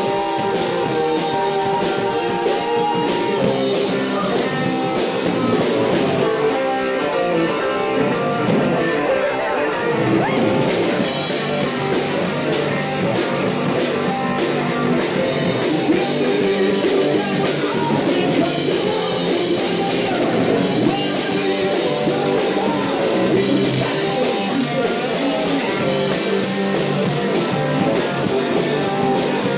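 Live rock band playing: electric guitars and a drum kit, with a male lead vocal sung into the microphone.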